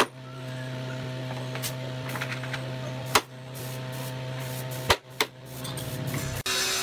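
Claw hammer striking the wooden slat bed frame, four sharp blows, the last two close together, over a steady electrical hum.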